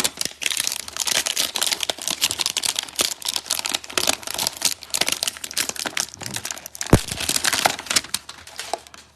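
Cardboard and plastic wrapping of a trading-card hanger box crinkling and tearing as it is forced open, a dense crackle with a sharp knock about seven seconds in.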